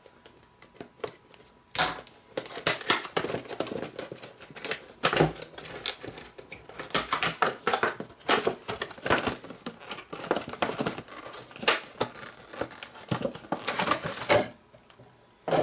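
Plastic wrapping on a boxed puzzle crinkling and rustling as it is handled and unwrapped, with dense irregular crackles and small clicks and knocks. The handling starts about two seconds in and stops shortly before the end.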